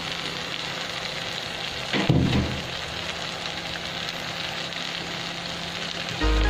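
Chopped kangkong (water spinach) sizzling steadily as it sautés in hot oil in a glass saucepan, with a single knock about two seconds in. Background music comes in near the end.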